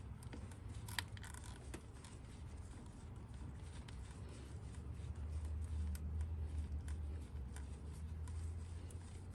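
Small scattered clicks and light handling noise as engine-bay parts are worked loose by hand, with a low rumble coming up about halfway through.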